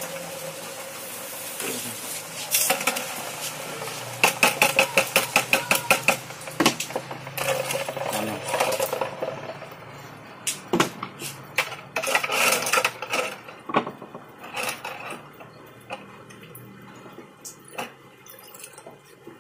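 Metal clattering and clinking. A fast run of sharp, ringing taps comes a few seconds in, then scattered clinks and knocks. Freshly cast lead fishing sinkers and a metal pot are being handled and dropped into a bucket of water.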